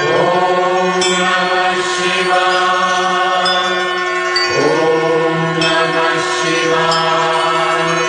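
Hindu devotional Shiva bhajan: a chanting voice in long held phrases over a steady drone, with a new phrase sliding in about halfway through.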